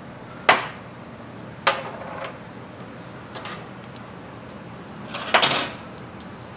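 Hand tools being handled and set down on a metal-strewn workbench: a sharp clank about half a second in, another with a short rattle near two seconds, a faint knock midway, and the loudest, a quick cluster of clatters, about five seconds in.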